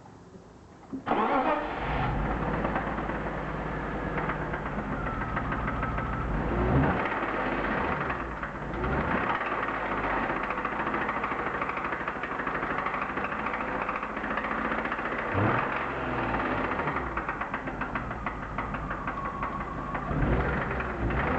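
BMW M52B25 inline-six starting about a second in, then running with ignition coil 1 unplugged, so on five cylinders. A knock runs through the idle that stays unchanged with that cylinder dead, which the owner takes as a sign it may not be a rod bearing after all.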